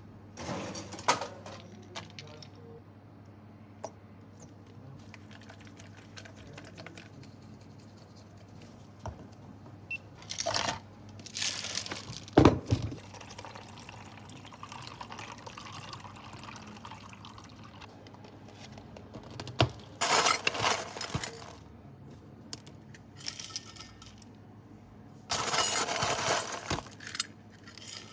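Milk tea poured from shakers into plastic cups of tapioca pearls, in several separate pours of a second or two each, with one sharp knock a little before the middle.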